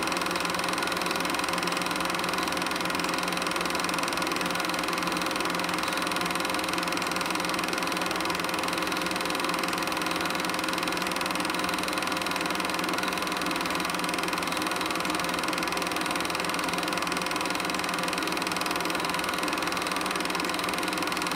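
Film projector running: a steady mechanical whir and rattle that holds the same pitch and level throughout.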